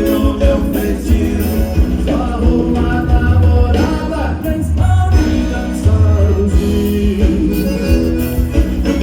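Live gaúcho dance-band music led by accordion, with a heavy bass line and a steady dance beat.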